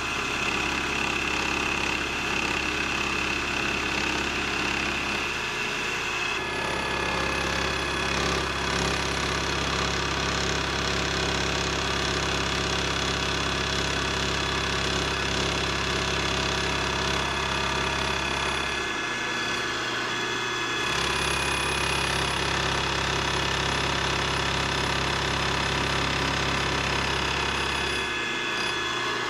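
Milling machine spindle running steadily while an end mill cuts a radius scallop into a metal part held on a rotary table. The steady machine hum shifts a few times, with the low hum dropping out briefly twice near the end.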